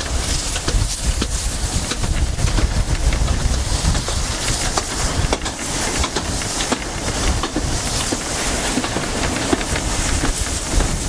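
Narrow-gauge railway carriage running along the line, heard from an open carriage window: a steady rumble and hiss of the moving train with scattered irregular clicks from the wheels on the track.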